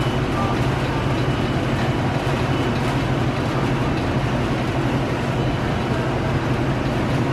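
A steady low droning rumble that does not change, with no distinct strokes or clicks standing out.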